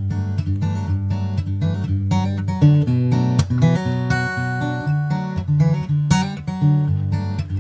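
Background music: an acoustic guitar piece, picked and strummed.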